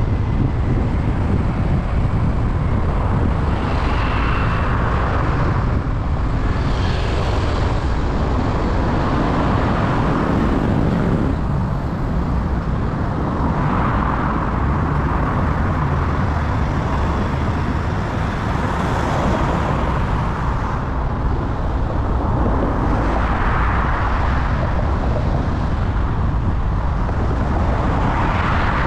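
Car driving in city traffic: a steady low road and engine rumble, with broad traffic noise that swells and fades every few seconds.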